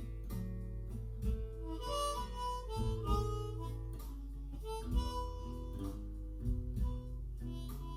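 Blues harmonica improvising in A, playing held and bent notes and chords over a guitar accompaniment.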